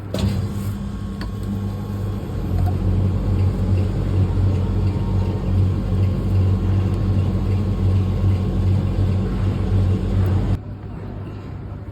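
A machine running with a steady, loud low electric hum that cuts off suddenly about ten and a half seconds in.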